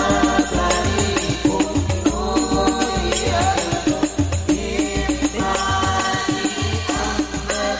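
Hadroh ensemble performing a sholawat: several men singing a melody together into microphones over hand drums and a large bass drum beating a steady rhythm.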